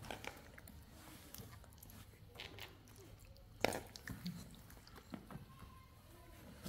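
Baby macaque chewing a small snack: soft scattered crunches and mouth clicks, with one sharper click about three and a half seconds in.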